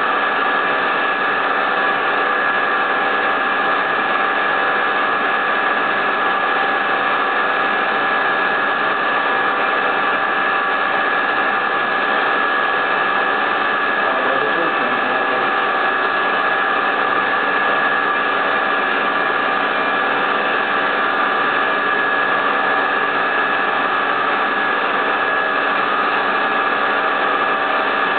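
High-speed CNC milling spindle running steadily while a micro end mill cuts a plate: an even hiss and whine with several fixed pitches that hold unchanged throughout.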